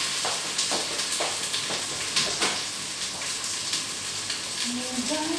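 Onions and ginger-garlic paste sizzling steadily in hot oil in a pan, with scattered small crackles. Near the end someone starts humming a tune.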